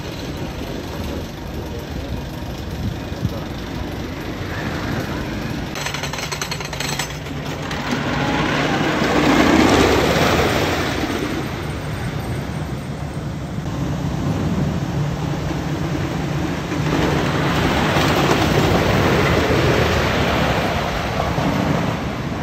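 Great Coasters International wooden roller coaster train running along its track, a rumbling noise that swells loud as the train passes, once around ten seconds in and again near the end.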